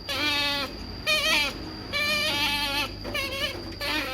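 Pet otter squealing in a run of about five wavering, high-pitched calls, excited and begging for food.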